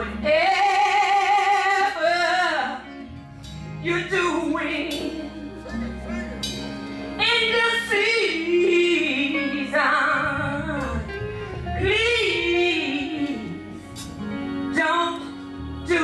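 Gospel choir singing, led by a woman's voice in long, wavering held notes over low, steady accompanying notes, with short breaks between phrases.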